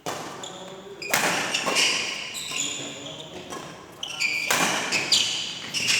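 Sharp ball-like impacts three times, at the start, about a second in and about four and a half seconds in, mixed with excited shouting voices in a large echoing room.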